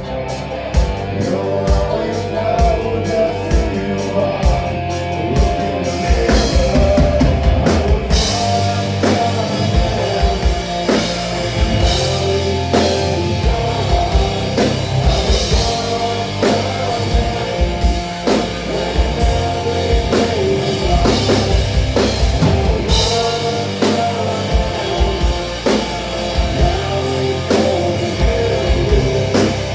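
Rock music: a drum kit and guitar playing together. The drums come in hard about six seconds in and keep a steady beat.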